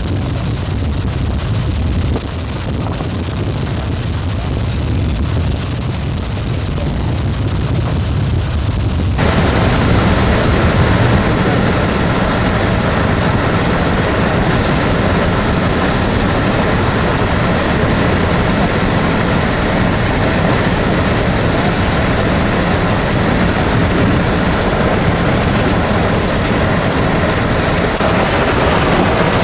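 Steady wind and road noise from a moving car, heard from inside. About nine seconds in it turns suddenly louder and hissier, and holds that level.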